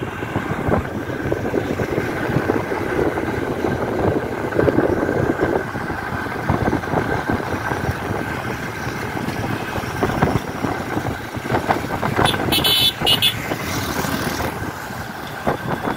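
Road and traffic noise heard from inside a moving car: a steady mix of engine, tyres and wind, with other vehicles passing. About three-quarters of the way through there is a brief high-pitched sound lasting about a second.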